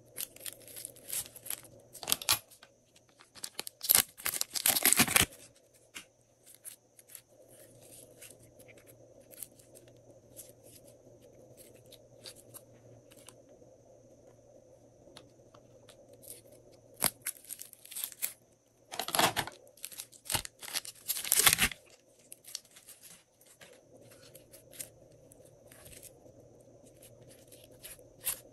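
Glossy slime being squished and stretched by hand. It makes crackling, popping bursts, three main spells of it with scattered small pops in between, over a faint steady hum.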